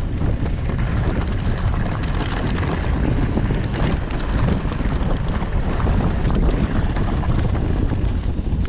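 Wind buffeting the microphone of a mountain bike rider on the move: a loud, steady low rumble, with faint clicks here and there.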